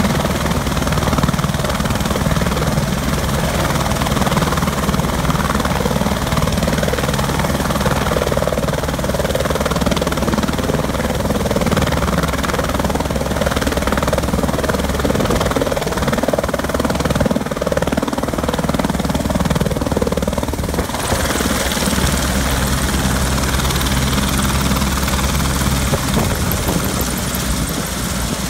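Turbine helicopter hovering low with a steady rotor chop and engine whine. Its sound changes about two-thirds of the way through as it sets down on the pad, with the rotor still turning.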